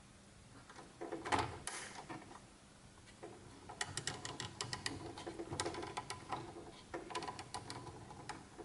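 Fingers turning the knurled stylus-pressure dial on a turntable tonearm's counterweight: faint handling scrapes about a second in, then a quick run of small clicks and rubbing from about four seconds in until near the end.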